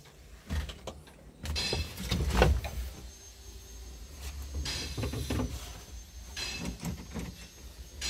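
Irregular clunks and rattles with bursts of low rumble, as someone moves about in a bulldozer's cab and handles its door.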